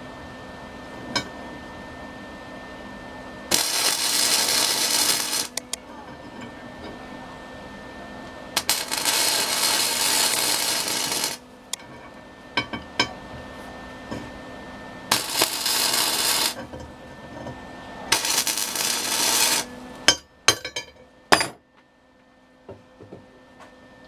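Lincoln Pro Core 125 flux-core wire welder's arc crackling in four bursts of one to three seconds each, tacking a nut onto a bolt. A few sharp taps follow near the end.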